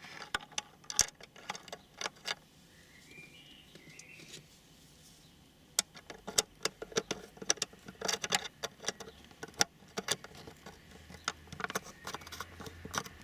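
Small clicks and scrapes of a screwdriver tip and pliers on the plastic twist-lock bulb holders in the back of a car radio display unit. The clicks are sparse at first and come thick and fast from about halfway on.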